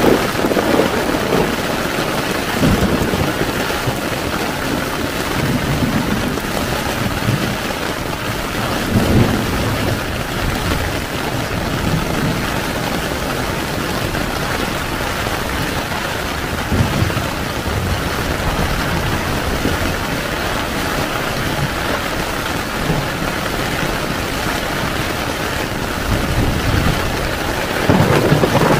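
Heavy rain falling steadily on a tent, with low rolls of thunder now and then, the loudest near the end.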